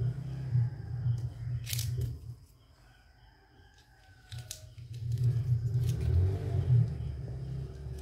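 Hard plastic toy kitchen utensils handled and set down on a table, giving a few sharp clicks. Under them runs a low rumble that drops away for about two seconds near the middle.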